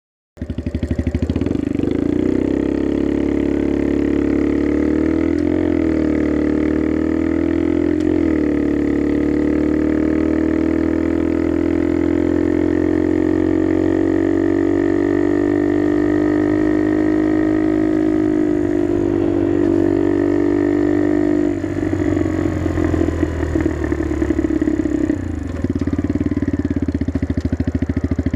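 Dax Skyteam mini motorcycle's single-cylinder engine running through an aftermarket NHRC carbon exhaust while riding, its pitch drifting with brief dips between steady stretches. About three-quarters of the way in the note turns choppy and uneven, crackling and popping off the throttle.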